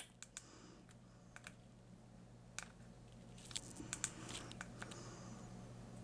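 Faint small plastic clicks of buttons on a handheld Bluetooth camera remote being pressed, a sharper click at the start, then scattered lighter clicks with a little handling rustle between about three and five seconds in.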